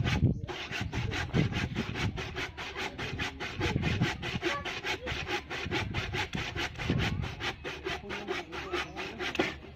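Handsaw cutting through a wooden board in quick, steady strokes, about four or five a second. The sawing stops just before the end.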